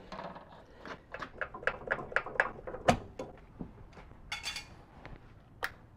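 Irregular small clicks and taps of a screwdriver prying at a plastic electrical connector under a vehicle's rear bumper, with one sharper knock about three seconds in and a brief scrape a little after four seconds.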